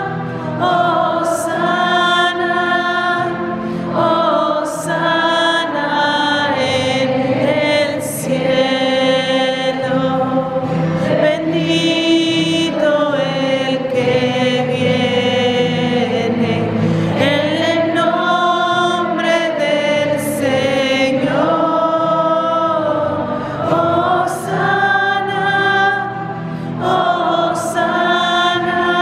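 A group of voices singing a slow sacred chant together, in long held phrases with short breaks between them.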